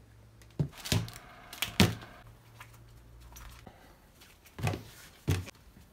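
A bicycle tyre and wheel rim being handled and knocked about as the tyre is fitted onto the rim: several short knocks and thumps, the loudest about two seconds in, with two more near the end.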